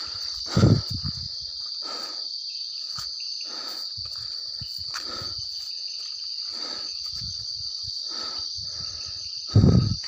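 A steady high-pitched chorus of night insects. Over it, footsteps on a concrete path fall about every 0.7 s, with two louder thumps, one just after the start and one near the end.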